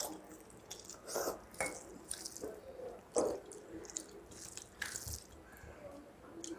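Close eating sounds: wet smacks and squishes of rice mixed with saag broth being eaten, with chewing, in short irregular clicks.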